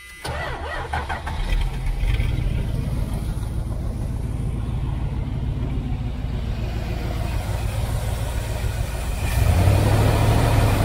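A 1978 Dodge Aspen R/T's V8 engine starting: it turns over unevenly for about a second and a half, catches, and runs steadily, getting louder about nine seconds in.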